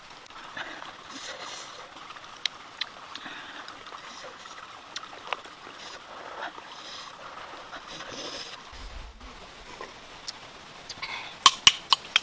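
Small clicks of snail shells being handled over a faint outdoor background hiss, with a quick run of sharp, louder clicks near the end as a cooked snail is handled in the fingers.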